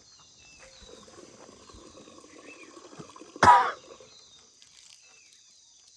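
Steady insect chirring, with one short, loud cough-like sound about three and a half seconds in.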